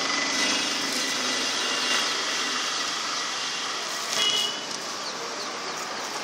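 Steady outdoor background din, with a brief high-pitched tone about four seconds in.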